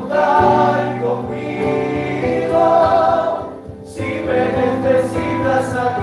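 Congregation singing a Spanish worship chorus in unison with musical accompaniment, with a short break between lines a little past halfway.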